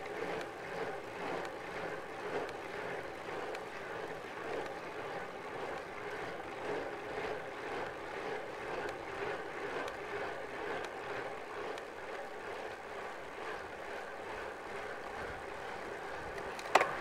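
Steady rush of wind and tyre noise from a road bike riding at speed, wavering gently in level, with one sharp click near the end.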